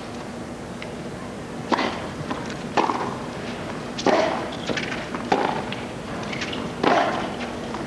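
Tennis rally on a hard court: five sharp racket strikes on the ball, roughly one every second and a quarter, over a steady background of the crowd.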